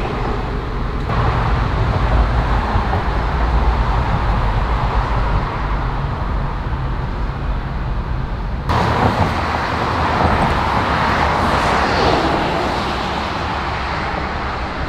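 Outdoor road traffic noise: a continuous low rumble and hiss of passing cars. The noise shifts abruptly about a second in and again about nine seconds in.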